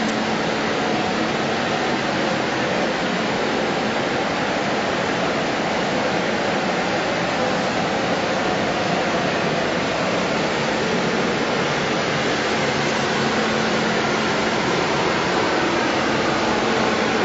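Steady machinery noise from a factory production line: an even hiss with a faint low hum, unchanging throughout.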